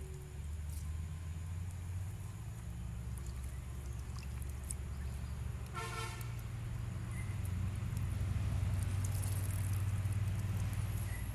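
Low, steady engine drone, swelling a little near the end, with one short toot about six seconds in.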